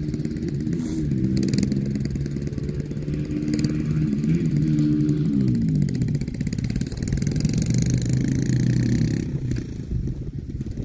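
An engine running, its pitch rising and falling as it revs, fading about a second before the end.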